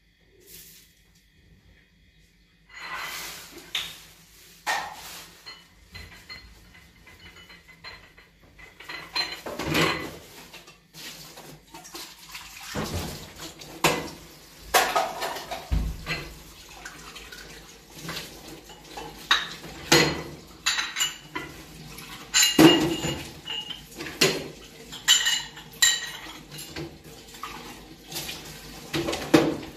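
Dishes and metal utensils clinking and clattering in irregular knocks, over a faint splash of water, starting about three seconds in.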